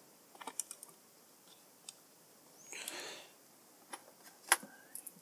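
Scattered small clicks and taps of hands handling the straighteners' plastic parts and a small tool. A cluster comes about half a second in and the sharpest click about four and a half seconds in, with a short soft rush of noise around the three-second mark.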